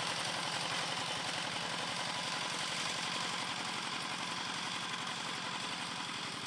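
A small engine running steadily, with a fast, even pulse under a broad hiss.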